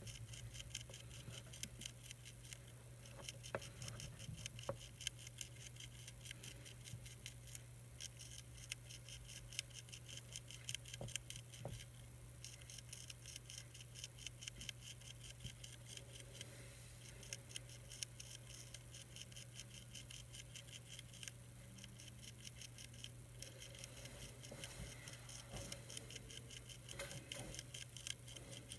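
Faint, rapid clicking of a monarch caterpillar chewing a milkweed leaf, coming in runs of a few seconds with short pauses, over a steady low hum.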